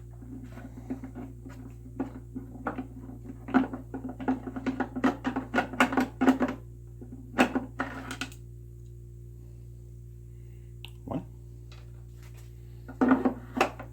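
Rapid runs of clicking from a 1/4-inch drive tool turning a long T15 Torx bit as the screws deep in a Macintosh Classic's case are worked loose. The clicking thins out after about eight seconds, with one more click later and more near the end, over a faint steady hum.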